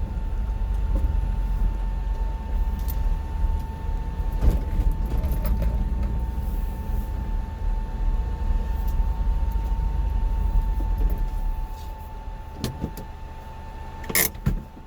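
Car interior noise while driving slowly: a low engine and road rumble that dies away about three-quarters of the way through as the car comes to a stop. A thin steady tone runs throughout, and a few clicks come near the end.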